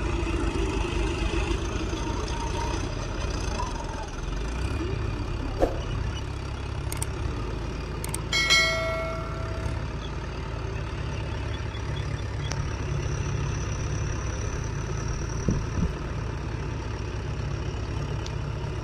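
Diesel tractor engines running steadily, a John Deere 5310 labouring through deep paddy-field mud. About eight seconds in comes a single short bell-like ring that dies away within about a second.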